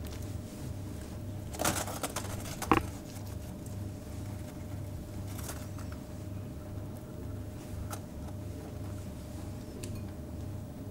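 Hands working a rolled rabbit saddle and kitchen string on a wooden cutting board: soft handling noises over a steady low hum, with a few sharp knocks about two seconds in and faint ticks later.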